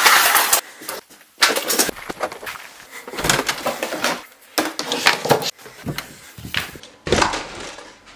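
Handling noise: a run of irregular knocks, scuffs and rustles as things are grabbed off a workbench and an RC truck is picked up off a rug, with the handheld camera's own handling noise.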